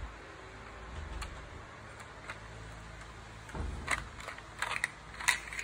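LEGO plastic bricks clicking and rattling as the brick box is handled. A few scattered light clicks come first, then a soft knock about three and a half seconds in, followed by a busier run of clicks and rattles.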